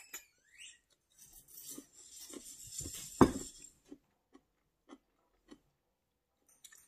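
Mukbang eating sounds close to the microphone: a long hissing slurp of ramen noodles that ends in a sharp knock, the loudest sound, about three seconds in. Then come slow, soft chewing clicks about every half second.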